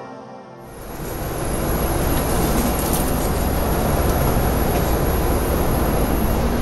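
Steady cabin noise of an airliner in flight, the even rush of engines and airflow, with a thin high whine over it. It comes in about half a second in as the music ends and builds over the next second.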